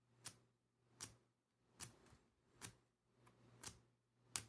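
Six short, sharp scrapes about one every 0.8 seconds: a striker being dragged down the small ferro rod fire starter built into a paracord survival bracelet buckle. The rod is painted and has to be scraped hard to make it spark.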